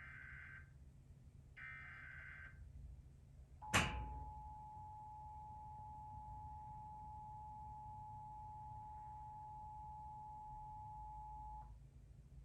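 Emergency Alert System test signal: the last two short bursts of the SAME header data tones, a sharp click about four seconds in, then the steady two-tone EAS attention signal held for about eight seconds before it cuts off. The signal announces a statewide required monthly test.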